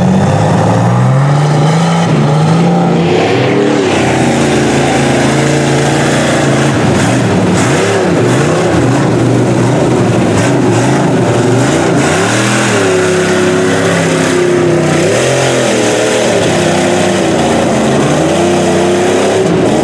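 Mud truck engine revving hard in repeated rises and falls as the oversized tyres churn through deep mud and water.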